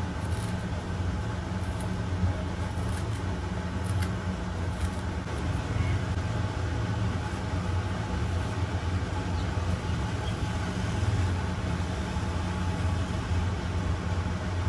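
A steady low mechanical hum, unchanging throughout, with a few faint ticks over it in the first five seconds.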